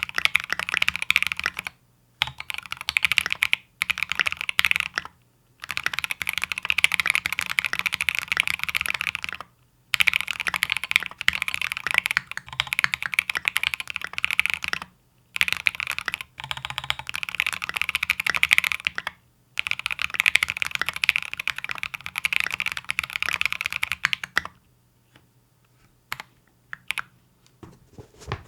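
Fast typing on a mechanical keyboard, an E7-V2 prototype with Obsidian switches and SA-profile Oblivion keycaps, in runs of a few seconds broken by short pauses. The typing stops a few seconds before the end, leaving a few single key clicks.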